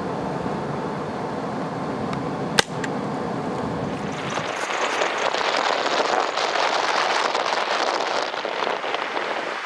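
A single sharp .22 rifle shot about two and a half seconds in, over the steady low running of a vehicle engine. From about four and a half seconds a louder hissing rush takes over and the low rumble drops away.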